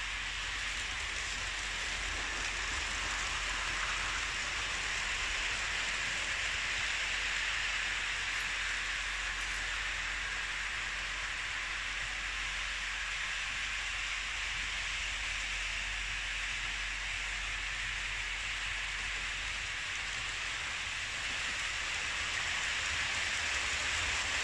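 Märklin H0 model trains running on metal track: a steady rolling hiss of wheels and motors, growing a little louder near the end as a freight train passes close by.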